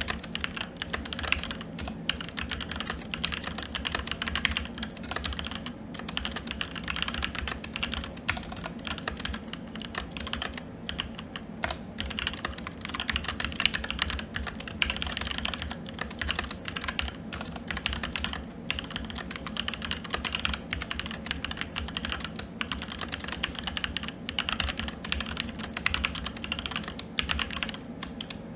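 Continuous fast typing on a SteelSeries Apex 7 TKL mechanical keyboard with red linear switches: a dense, irregular stream of key clacks.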